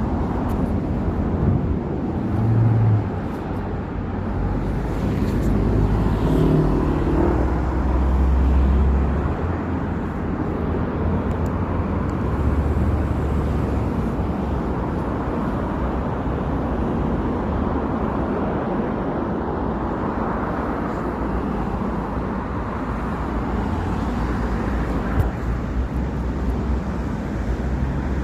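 City street traffic: cars passing with a steady low rumble of engines and tyres. It swells louder as vehicles go by, most of all in the first ten seconds.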